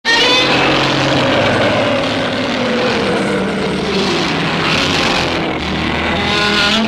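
Godzilla atomic breath sound effect: a loud, sustained roaring blast with wavering, gliding tones inside it, starting suddenly out of silence and holding steady.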